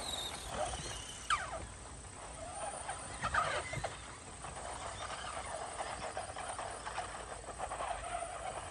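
Small electric RC cars driving across a grass lawn, their motors whining faintly and sweeping up and down in pitch a few times as they speed up and slow.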